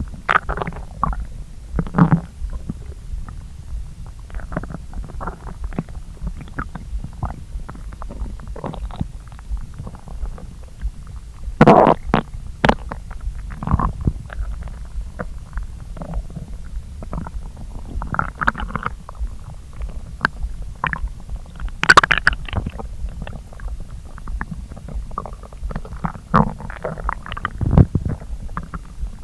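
Human stomach gurgling as it digests a freshly eaten meal after hours on an empty stomach: a steady low rumble under many short gurgles and squelches, the loudest about 12 and 22 seconds in.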